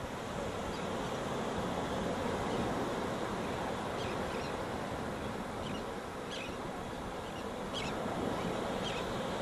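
Small surf breaking and washing up a sandy beach, a steady rushing that swells and eases, with wind on the microphone.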